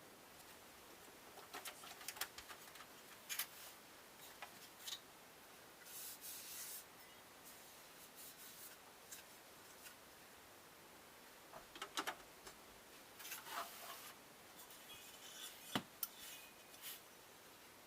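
Faint, scattered rubbing, scraping and clicking as parts of a Yamaha PSR-172 keyboard are worked on by hand, with a couple of longer scrapes and a sharp click near the end.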